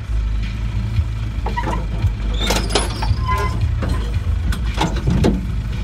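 Low, steady drone of a diesel Land Rover engine crawling in low gear, heard from inside the cab. Over it come scattered clunks, scrapes and a brief squeak as the vehicle lurches over ruts and brushes the overgrowth, busiest about halfway through and again near the end.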